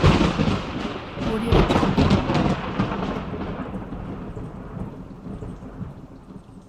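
A thunderclap that breaks suddenly with a sharp crack, a second burst of crackling about a second and a half in, then a long low rumble that slowly fades away.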